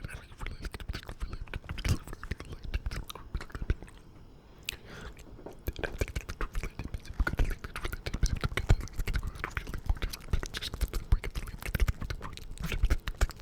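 Close-miked ASMR mouth sounds: rapid wet clicks and smacks mixed with inaudible whispering, thinning out for a moment around four to six seconds in.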